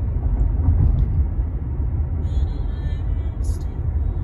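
Steady low rumble, with faint higher tones a little past the middle and a brief hiss near the end.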